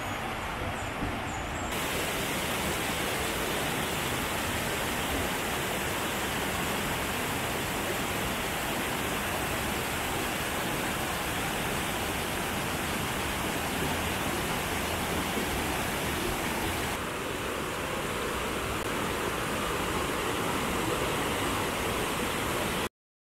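Steady rush of a waterfall and a rocky mountain stream, a dense even roar of splashing water. The sound shifts a little about two seconds in and again near the end, and cuts off suddenly just before the end. A few faint high chirps are heard in the first second or two.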